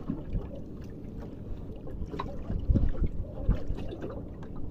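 Steady low rumble of wind and sea around a small fishing boat, with a few dull thumps around the middle.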